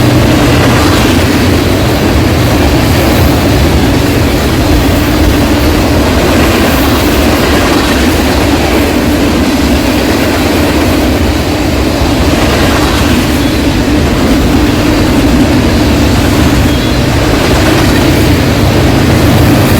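Train passing close by: a loud, steady mix of low engine drone and wheel-on-rail noise, with faint regular clicks as the wheels cross the rail joints.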